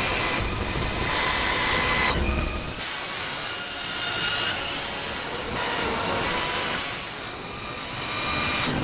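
Designed sound-effect ambience: a dense, noisy mechanical drone layered with high whining tones that shift every second or so, with a few rising glides about halfway through.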